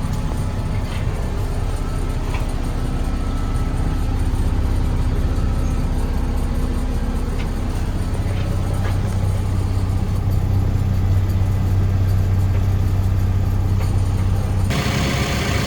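Diesel engine of a Case 580 Super N loader backhoe running steadily with a deep hum and a few faint clicks. Near the end the sound turns suddenly harsher and brighter.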